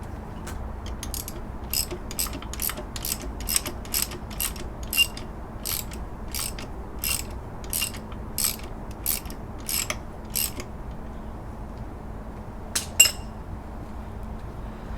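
Ratchet wrench clicking at an even pace, about two clicks a second, as the tension bolt on the air conditioning belt tensioner is turned to slacken the belt. The clicking stops about ten seconds in, with two more clicks near the end.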